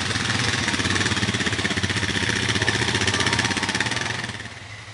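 ATV engine running with a rapid pulsing exhaust note, dropping away sharply near the end.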